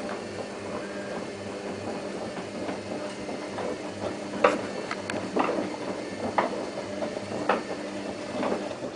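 Whirlpool AWO 3631 washing machine running early in a 40°C wash: a steady mechanical hum with sharp knocks about once a second in the second half, the hum dropping away near the end.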